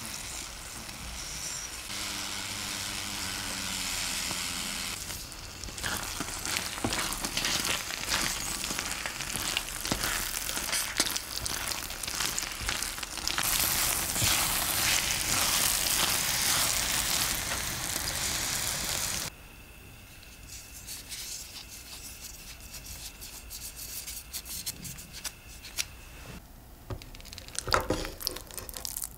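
Beef and tomato sauce with shell pasta sizzling in a frying pan, with a spoon stirring through it and small clicks and scrapes. The sizzle gets louder partway through, then cuts off abruptly about two-thirds of the way in, leaving a quieter background with a few soft knocks near the end.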